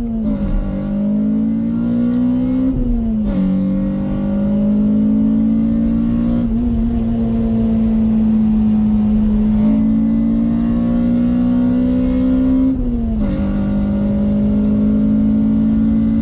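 Honda Civic Type R's K20 engine under hard acceleration, its note climbing steadily in each gear and dropping sharply at gear changes about three seconds in and again near the end.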